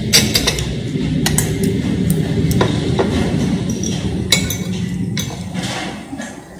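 Metal fork and spoon clinking and scraping against ceramic plates and bowls while eating rice: a string of sharp, irregular clinks over a steady low background noise.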